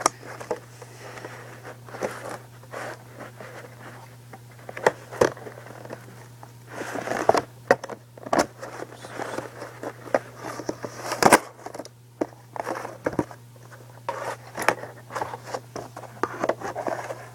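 Scissors cutting through a stiff plastic blister pack: irregular snips, with crackling and scraping of the plastic and a few louder sharp snaps.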